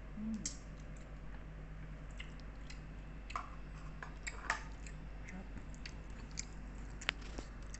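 A person chewing a spoonful of fermented glutinous rice close to the microphone: soft, wet mouth sounds with scattered small clicks, over a steady low hum.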